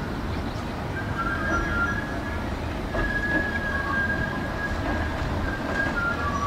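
Water-balance funicular cars of the Leas Cliff Lift running on their rails: a steady low rumble, with a high wheel squeal starting about a second in that comes and goes in long drawn-out tones.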